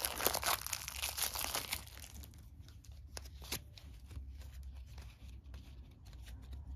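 Crinkling and rustling for about two seconds, then a thick deck of game cards being thumbed through by hand, the card edges flicking in quiet, scattered clicks.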